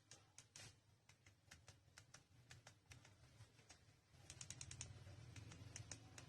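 Faint, irregular clicking of a feature phone's keypad buttons being pressed, some in quick runs about two-thirds of the way through, over a faint low hum.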